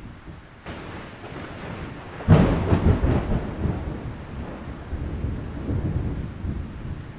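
Thunderstorm: a sudden loud thunderclap with crackling about two seconds in, rolling into a long rumble that swells again near the end, over a steady hiss of rain.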